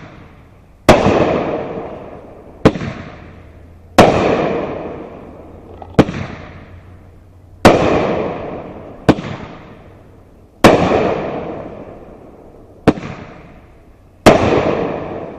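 Nishiki willow aerial fireworks firing in a steady sequence. Each shot leaves with a sharp crack, and about a second and a half later a louder burst follows that trails off in a long fading hiss. This happens five times, spaced three to four seconds apart.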